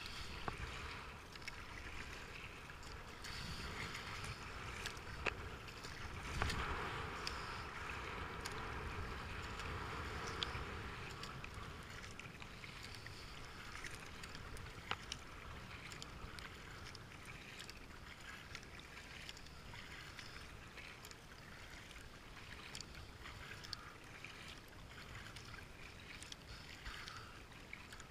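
Kayak paddling: the paddle blades dip and splash in steady strokes and water washes along the hull, with scattered light ticks and drips. It is a little louder in the first ten seconds.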